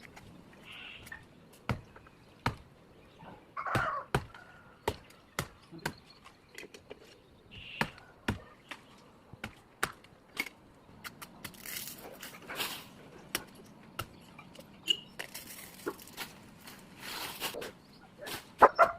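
Hand tree-cutting with a blade: irregular sharp chopping strikes on wood, roughly one or two a second, with a few short bursts of hiss in the second half.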